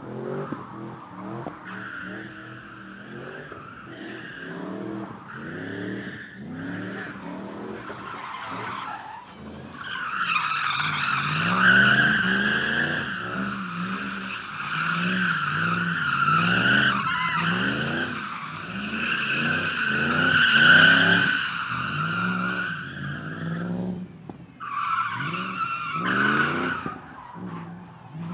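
BMW E30 drift car sliding in continuous drifts: tyres squealing steadily over an engine revving up and down in quick rises and falls. The squeal is loudest in the middle, drops away briefly near the end, then comes back.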